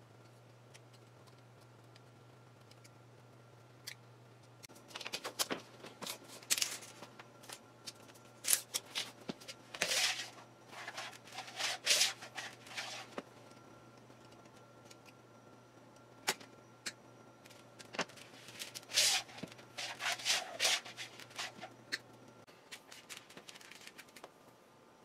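Hands handling wire and small workshop materials: clusters of rustling and scraping a few seconds long, with short sharp ticks between them. Under them runs a faint steady low hum that stops near the end.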